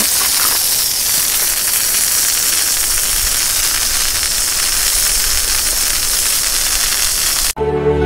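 Sprayer lance hissing steadily as it jets a fine mist of liquid onto cardamom plants. The hiss cuts off suddenly near the end as music begins.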